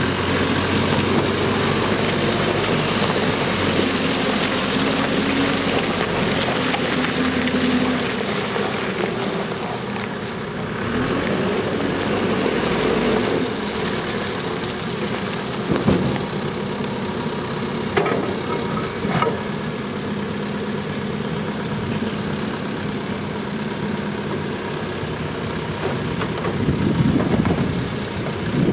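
Fermec 860 backhoe loader's diesel engine running as the machine drives and turns, its pitch rising and falling, with a few short sharp knocks in the second half.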